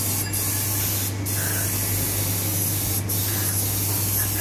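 Paint spray gun hissing steadily as paint is sprayed, over a steady low hum.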